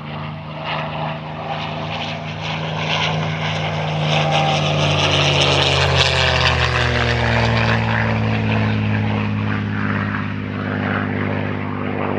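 Propeller-driven piston-engined aircraft flying past. The engine note grows louder over the first half, and the pitch then falls as it passes by.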